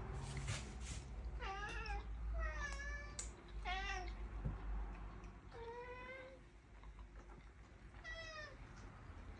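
Domestic cats meowing five times, short calls a second or two apart, while being hand-fed: begging meows for food.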